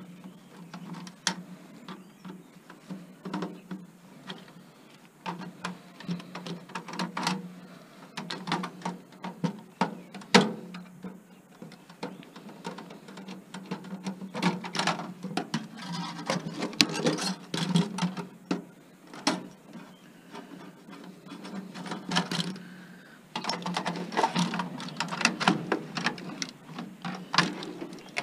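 Flat screwdriver prying and scraping at a crushed computer's metal case and parts: irregular clicks, scrapes and clanks, thickest in the second half, over a steady low hum.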